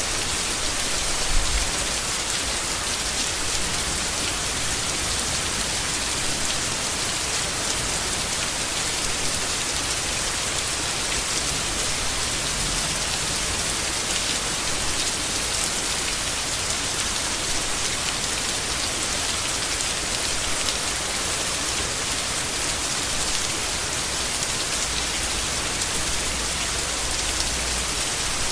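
Steady, heavy rain falling on leaves, a dense even hiss of drops. A short low thump comes just over a second in.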